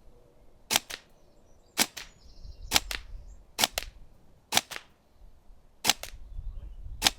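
Tokyo Marui Next Gen Recoil Shock electric airsoft gun firing single shots, seven in all at about one a second. Each shot is a sharp double crack.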